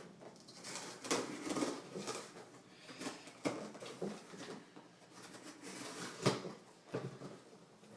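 A cardboard shipping box being opened and handled by hand: irregular rustling, scraping and light knocks, with one sharp knock about six seconds in.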